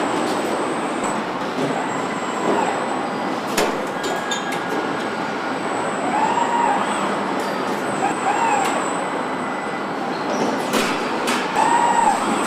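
Steady rumbling noise of a moving vehicle, with short rising-and-falling whines recurring every couple of seconds and a few sharp clicks.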